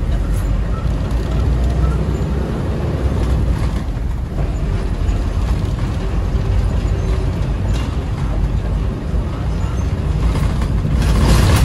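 Toyota Coaster minibus on the move: a steady low engine and road rumble with light rattles, and a louder rush of noise about eleven seconds in.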